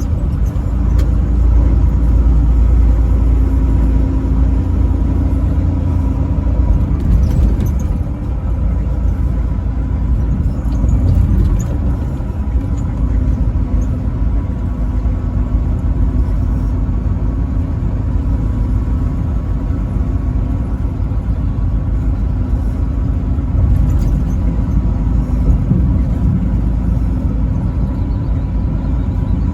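Truck driving at highway speed: a steady low rumble of engine and road noise, with a faint steady whine riding on it.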